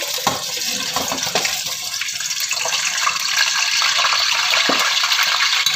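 Wet chicken leg sizzling in hot oil as it shallow-fries: a steady dense hiss with fine crackling and a few sharper spatter pops.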